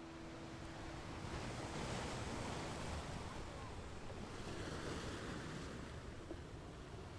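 Steady rushing noise that swells and eases every couple of seconds, with a last piano note dying away in the first second or so.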